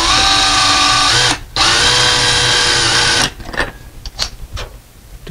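Cordless drill driving a screw through a metal blind bracket into wooden window molding: two runs of steady motor whine with a short pause between, stopping about three seconds in. A few light clicks follow.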